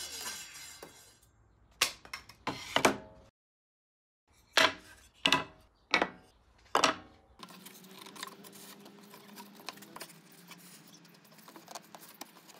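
Einhell TE-CC 250 UF table saw blade winding down with a falling whine right at the start, then pieces of sawn pine set down on the metal saw table with sharp wooden knocks, four loud ones in quick succession about midway, followed by soft rubbing and clicking as the mitered pieces are handled.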